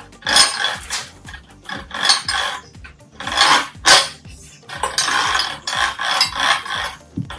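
The bolted metal carriage of an angle grinder sliding jig is pushed along its steel square-tube rail, its rollers rattling and scraping against the metal in irregular bursts.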